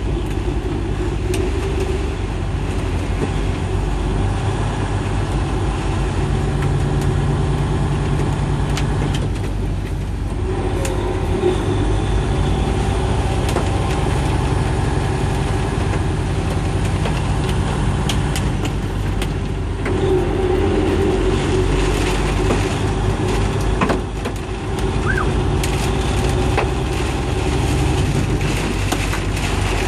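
Cabin noise from a car driving at highway speed in heavy rain: a steady engine and tyre drone on the wet road, with many sharp ticks of rain striking the windshield and roof.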